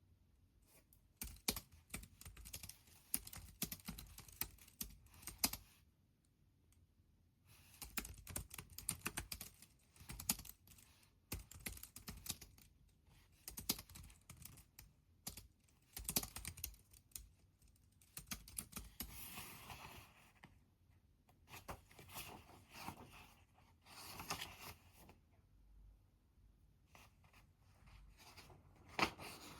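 Typing on a computer keyboard: runs of rapid key clicks broken by pauses of a second or two.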